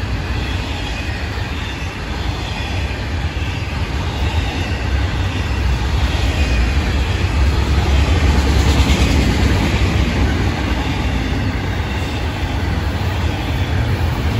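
Florida East Coast freight train's autorack cars rolling past: a steady rumble of steel wheels on rail.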